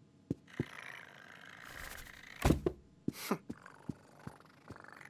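Cartoon sound effects: a stretch of paper rustling, then a thump about two and a half seconds in, followed by a short falling cat vocal sound. Soft, evenly spaced taps of padding paws run underneath.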